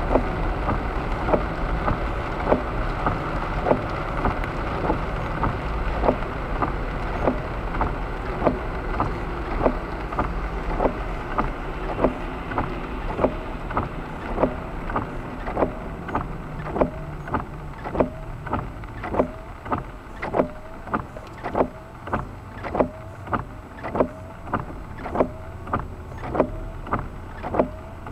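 Car's turn-signal indicator clicking steadily, about three clicks every two seconds. Underneath, tyres hiss on the wet road, and the hiss fades as the car slows to a stop.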